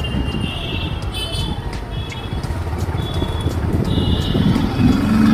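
Busy city street traffic heard from a moving vehicle: a steady engine and road rumble, with several short, high horn beeps and a lower horn tone near the end.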